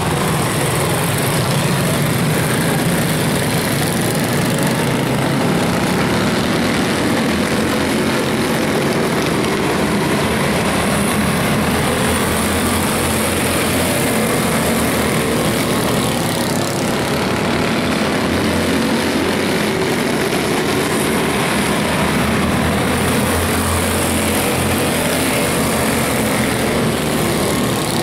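Several quarter midget race cars' small single-cylinder engines running together in a steady drone.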